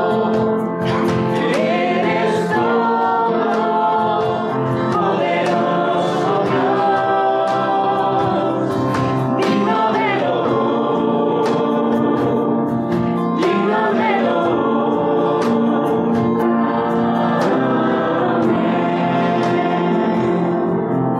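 A congregation singing a worship song together, with instrumental accompaniment.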